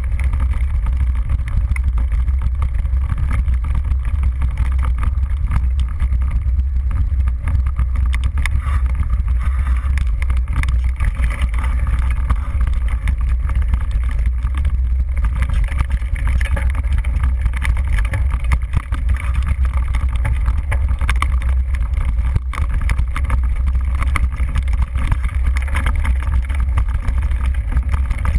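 Mountain bike ride heard from a handlebar-mounted action camera: a steady, loud low rumble of wind buffeting the microphone, with frequent small rattles and knocks from the bike jolting over rough grass and ruts.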